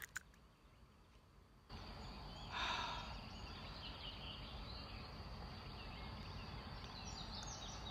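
Faint outdoor background hiss, with one short breathy rush about two and a half seconds in.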